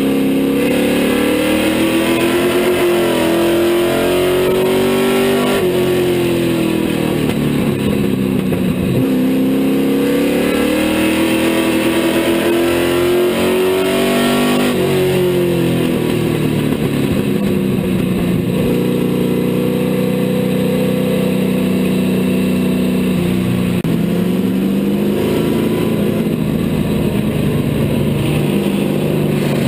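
Street stock race car's V8 engine heard from inside the cockpit, running at modest speed with the revs climbing and dropping several times, as when pacing laps under caution just before a restart.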